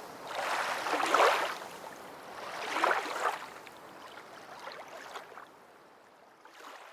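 A rushing noise that swells twice, about a second and three seconds in, then fades away.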